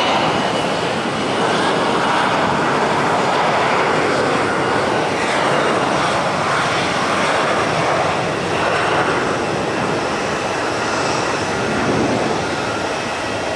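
Boeing 737-800's CFM56-7B turbofan engines running steadily at idle, a dense jet roar with a faint high whine.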